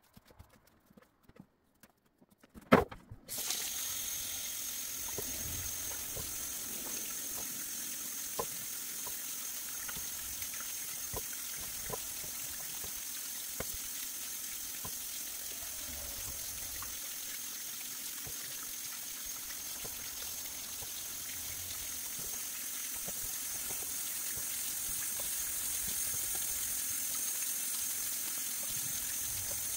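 Kitchen faucet running into a sink, water splashing over carrots as they are rinsed and rubbed by hand, with faint small knocks. Near silence for about the first three seconds, then a click and the water comes on.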